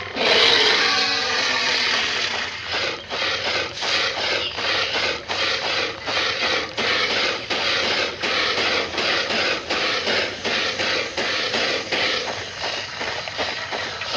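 Film creature sound effects for a Ceratosaurus: a loud rasping burst at the start, then steady rhythmic rasping pulses, about two to three a second.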